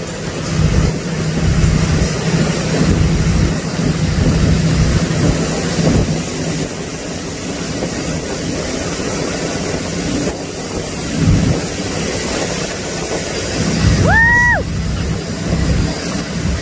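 Motorboat engine running steadily under way, with the wake churning and splashing behind the stern and wind buffeting the microphone. Near the end, a brief high-pitched tone rises, holds and drops away.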